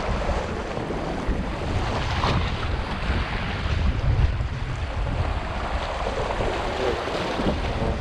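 Wind buffeting the microphone with a heavy, steady rumble, over small waves washing and splashing against the rocks at the water's edge.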